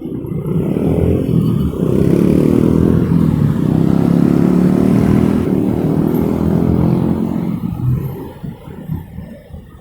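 A motor vehicle passing close by on the road: its engine swells up over the first couple of seconds, stays loud for several seconds, then fades away near the end.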